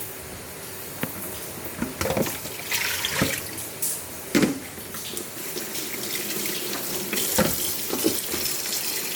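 Water running and splashing while fish are washed clean, with a few irregular knocks and clatters, the loudest about halfway through.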